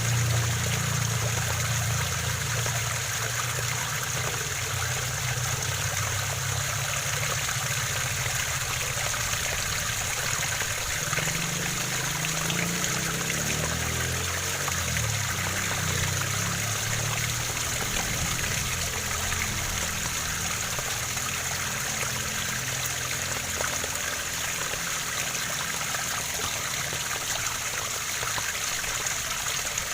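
Waterfall: water falling and rushing steadily, with a low rumble underneath.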